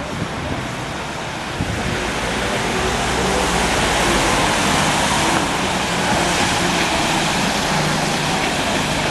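A heavy vehicle's engine hum under a steady rushing noise that swells over the first few seconds and then holds.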